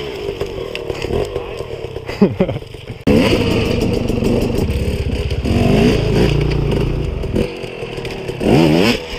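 Two-stroke enduro dirt bike engine revved in repeated bursts, rising and falling, as the bike is pushed over a pile of logs, with clattering and scraping of the bike on the wood. The engine gets sharply louder about three seconds in.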